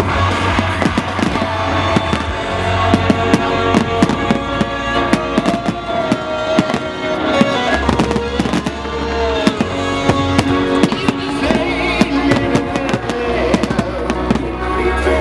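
Fireworks bursting and crackling in rapid, irregular bangs over loud music from the display's soundtrack, with sustained notes and a deep bass line.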